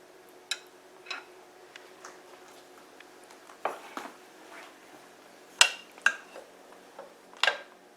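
Kitchen utensils knocking against dishes: about ten separate short clinks, the loudest a little past halfway and another near the end.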